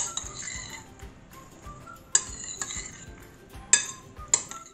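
A spoon stirring diced eggplant, tomato and beaten egg in a bowl, scraping and clinking sharply against the bowl's side several times.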